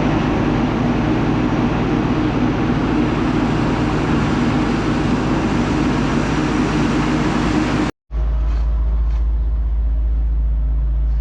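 Vehicle engines running steadily. An abrupt cut about eight seconds in switches to a different, deeper engine drone.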